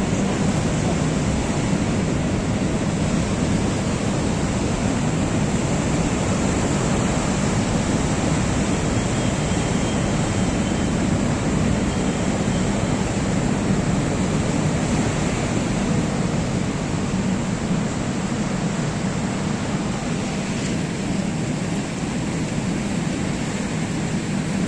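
Steady low rumble and hiss of a large cruise ship's engines and ventilation running at the quay.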